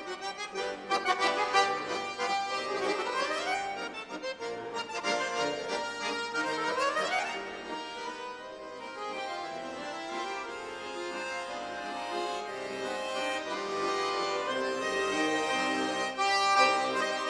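Bayan (Russian chromatic button accordion) playing a lively solo: quick repeated chords at first, two fast upward runs, then longer held chords.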